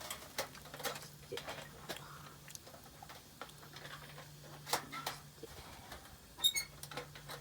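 Light clicks and taps of metal plates being handled on a folding fire pit, with a short ringing metal clink near the end.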